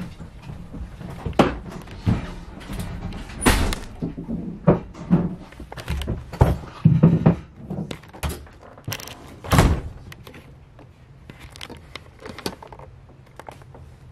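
Irregular knocks and thumps from someone moving through a small travel trailer, handling the bathroom door and stepping on the floor. The loudest thump comes about two-thirds of the way in, and the knocks thin out after it.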